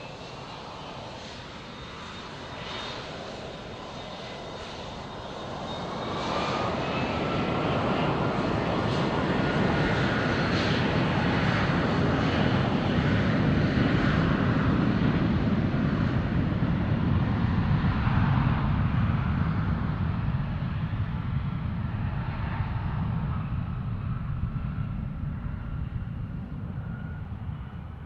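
Jet airliner passing: engine noise swells to a loud rumble with a thin high whine that rises in pitch, holds for several seconds, then slowly fades.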